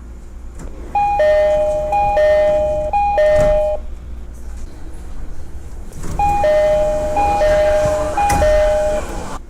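Japanese commuter train door chime: a two-note high-low chime played three times in a row, then the whole three-pair sequence again a few seconds later, each sequence ending with a thump. It sounds over the steady low rumble of the train.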